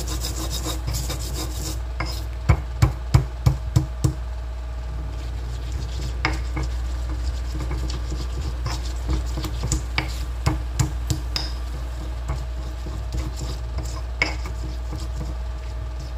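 Stone pestle grinding and rubbing garlic and spices on a stone mortar (Indonesian cobek and ulekan), stone scraping on stone, with a quick run of about five pounding knocks about two and a half seconds in and scattered clicks after.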